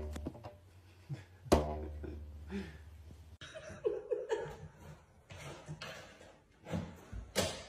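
A person's voice and short bursts of laughing, with a sharp knock near the end.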